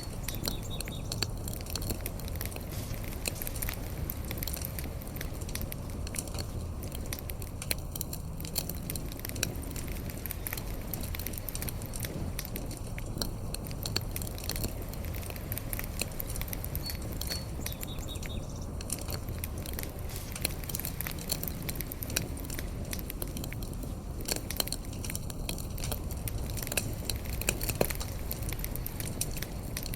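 A fire burning with dense, irregular crackles and pops over a steady low rumble, with a few louder pops near the end.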